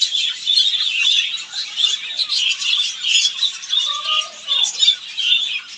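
A flock of small pet birds chattering: many overlapping short chirps and squawks.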